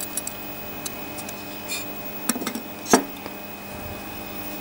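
Light metallic clicks and taps from handling the small brass and steel gear train of an electricity meter's register, with a quick cluster of taps and then one sharper knock about three seconds in. A faint steady hum lies underneath.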